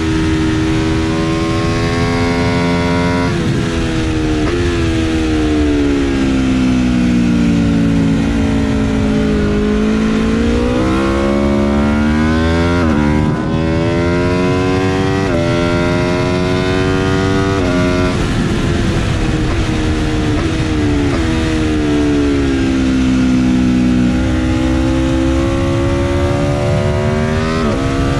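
Aprilia RSV4 RF V4 engine heard from onboard at racing speed, with wind rush. The engine note sinks slowly through the first third, then climbs hard in a run of rises, each cut off by a sudden drop as it shifts up a gear. Near the end it sinks and climbs once more.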